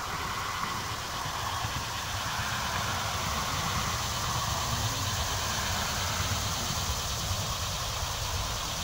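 A steady mechanical drone, like a motor or engine running, with a low rumble and a faint wavering higher hum.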